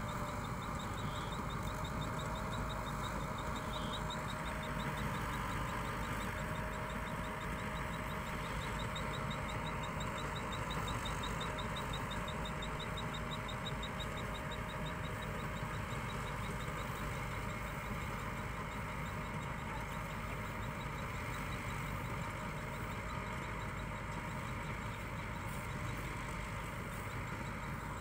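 Combine harvester engine running steadily at a distance, an even mechanical drone without change.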